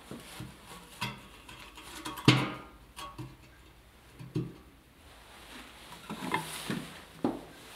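A capped plastic pipe handled and set upright inside a steel cylinder sawdust stove: a series of irregular knocks and clanks against the metal drum with some scraping, the loudest a ringing knock about two seconds in.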